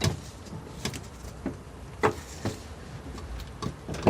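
Seat belt hardware being handled and fitted: several sharp clicks and light metallic knocks at irregular intervals.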